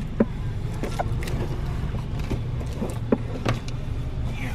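Steady low rumble of car road noise heard from inside the cabin, with a few light clicks and knocks.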